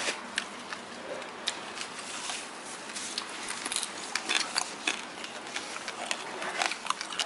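Steady restaurant room noise with scattered light clicks and clinks of chopsticks and dishes.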